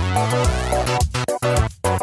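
Electronic intro music: a synthesizer melody over a heavy bass line and a steady beat, with a brief break near the end.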